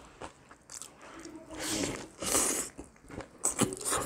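Close-up chewing and biting into a Zinger-style fried chicken burger, with bursts of crunching, the loudest about halfway through.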